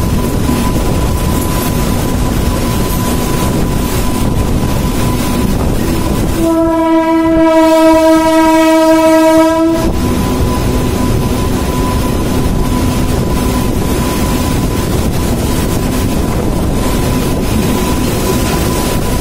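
Passenger train running across a steel truss bridge, heard from aboard: a steady rumble of the wheels on the rails. A train horn sounds one long blast of about three seconds near the middle.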